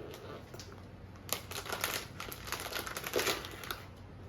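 A bag or its packaging crinkling as it is opened and handled, in irregular rustles from about a second in until nearly the end.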